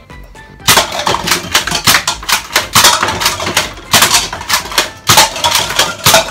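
X-Shot Twin Revolver foam dart blaster being cocked and fired in quick succession. Starting about a second in, a rapid run of sharp plastic clacks and snaps in clusters, with darts clattering against plastic cups and targets.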